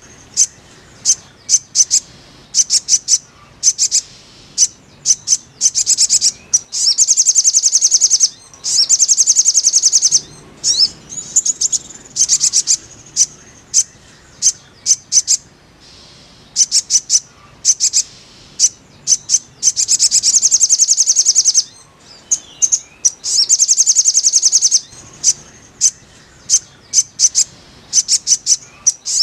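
Sogon (sogok ontong) birdsong: high-pitched, rapid chirping trills of a second or two, repeated several times and separated by scattered single sharp chirps.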